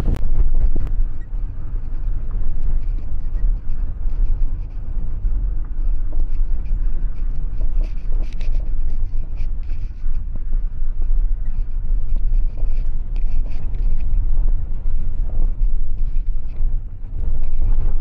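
Vehicle in motion heard from inside: a steady low rumble with scattered light rattles and knocks.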